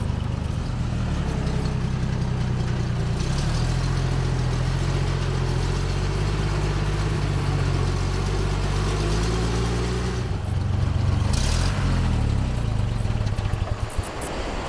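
Old ZIL truck's engine running under load as the truck drives, its pitch rising and falling with the throttle. It settles lower near the end.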